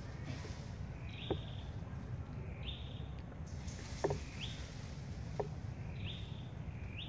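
A bird calling over and over, a short note that sweeps up and then holds high, about every one and a half seconds. A few short sharp clicks fall between the calls, over a low steady rumble of background noise.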